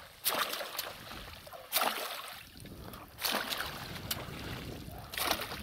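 A long wooden pole slapping and splashing the water surface four times, about one stroke every second and a half, beating the water to drive fish into a net.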